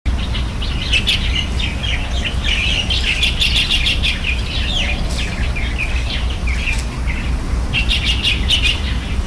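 Many small birds chirping in quick, overlapping calls, thinning out for a moment about six seconds in and picking up again near the end, over a steady low rumble.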